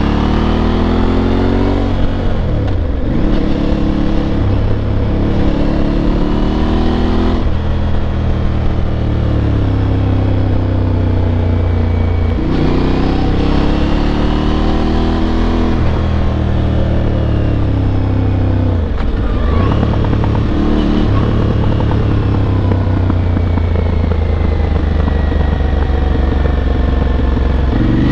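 Aprilia Tuareg 660's 659 cc parallel-twin engine, heard from the rider's seat, pulling under throttle. Its note climbs in pitch and drops sharply at each gear change, several times over, then falls away as the bike slows near the end.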